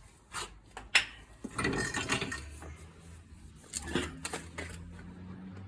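Tools and metal parts being handled: a sharp click about a second in, a burst of clattering shortly after, and scattered clicks, with a low steady hum from about halfway.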